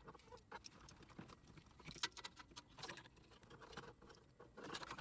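Faint, irregular clicks and rustling of wiring and plastic connectors being handled and tucked behind the dashboard.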